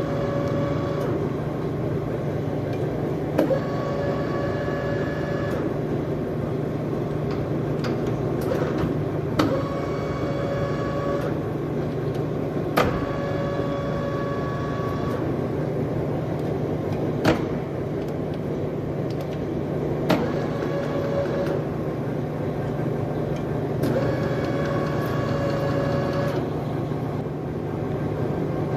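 Škoda SRM 100/4000 heavy centre lathe running with a steady low hum. A pitched whine of about two seconds recurs every three to four seconds, each one starting with a sharp click.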